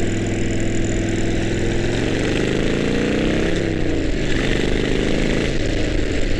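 Harley-Davidson V-twin motorcycle engine heard from the rider's helmet mic. It runs steadily, then rises in pitch as the bike accelerates from about two seconds in, drops at a gear change a second and a half later, and carries on lower.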